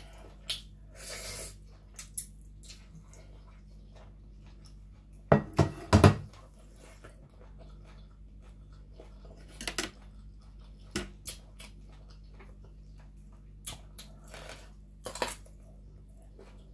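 Close-up eating sounds: scattered clicks and knocks of fingers and food against a plate, with chewing, and a cluster of three louder knocks midway. Near the end comes a crisp bite into a raw vegetable.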